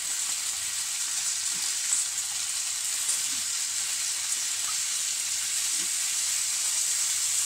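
Chicken quarters sizzling steadily in a double-sided non-stick fry pan, with an occasional sharp pop.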